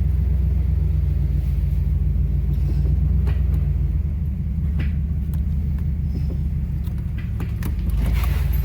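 1975 Cadillac Fleetwood's 500 cubic-inch V8 running at low speed, a steady low rumble, as the car creeps along without working brakes. A few light knocks, and a brief noisier stretch near the end.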